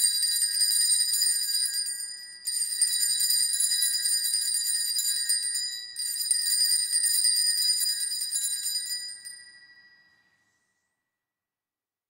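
Altar bells shaken in three peals of jangling ringing. The first is already sounding at the start, the second comes about two and a half seconds in and the third about six seconds in, and the last dies away near the end. The ringing marks the elevation of the consecrated host at Mass.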